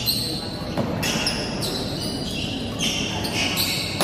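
Badminton doubles rally: court shoes squeaking again and again on the court floor, with sharp racket-on-shuttlecock hits and a low murmur from spectators beneath.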